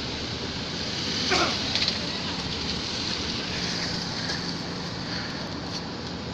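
Steady low engine rumble of heavy trucks coming off a ferry, mixed with wind on the microphone, with a short sharp sound about a second in.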